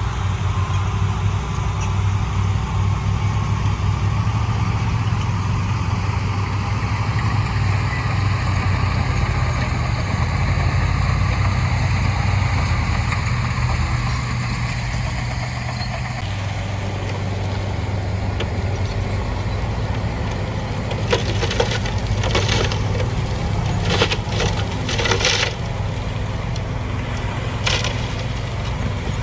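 Diesel engine of heavy earthmoving machinery running steadily, its note shifting slightly just past halfway. In the last third come several sharp clattering bursts, typical of rock and gravel being pushed or tipped.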